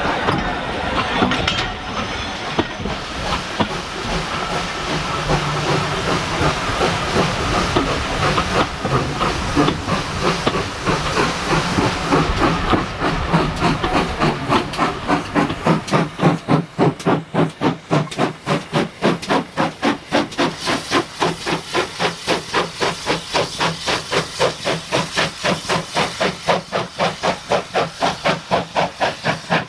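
Steam locomotive working: a steady hiss of steam at first, then, from about halfway, distinct exhaust chuffs in a steady rhythm of about three a second.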